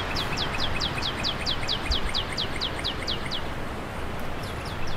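A bird singing a fast run of high, downslurred notes, about six a second for some three seconds, then a shorter burst of a few notes near the end, over a steady hiss of rain.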